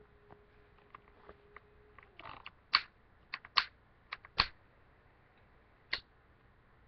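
A Zippo lighter handled: a string of sharp metal clicks and clacks, about eight in all, loudest around the middle, with a last single click near the end.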